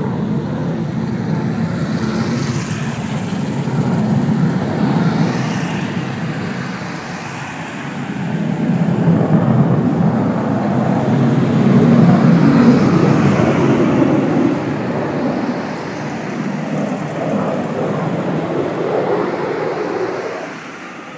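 F-16 fighter jet flying past: a deep rushing jet rumble that swells to its loudest around the middle and falls away near the end, with a few faint falling whines a few seconds in.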